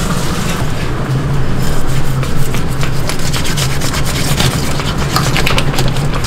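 A heavy kitchen knife sawing and scraping through the head and collar of a large yellowtail (daebang-eo) on a cutting board, a rapid run of rasping strokes, over a steady low hum.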